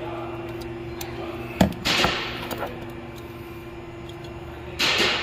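Green plastic JM3 strap-type oil filter wrench working the oil filter: a sharp click about one and a half seconds in, then a short scraping noise that fades, and another brief scrape near the end. A steady hum runs underneath.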